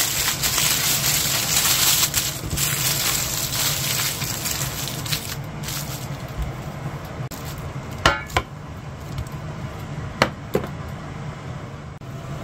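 Beef sizzling in a frying pan, the sizzle fading away over the first five seconds or so. Two sharp clinks follow about two seconds apart, each ringing briefly, over a low steady hum.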